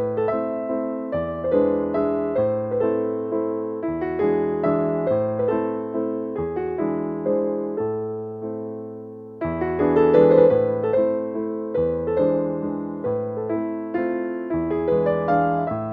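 Background music: a gentle piano melody with a steady pulse of notes.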